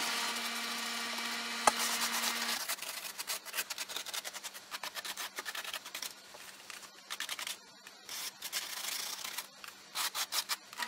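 Paintbrush scrubbing and dabbing a watery paint wash onto rough styrofoam, in rapid, irregular scratchy strokes with short pauses. A steady low hum sits under the first couple of seconds, with one sharp click about two seconds in.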